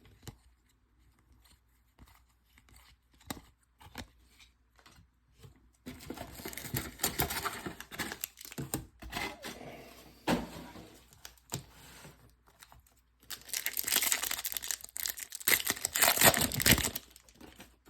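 A few light clicks, then foil trading-card pack wrappers being torn open and crinkled, in two spells: one starting about six seconds in and a louder one about thirteen seconds in.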